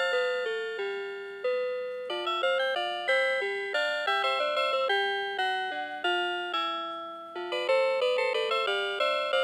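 Citizen CITE QHM3313-2 melody alarm clock playing one of its built-in electronic tunes. Each note starts sharply and fades, often two or more notes sounding together.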